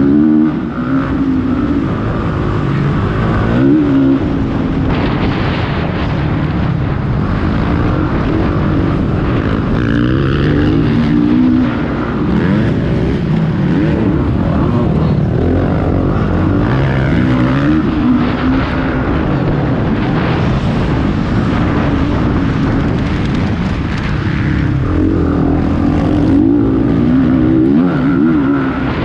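Several motocross motorcycles racing, their engines revving up and falling back again and again as they overlap.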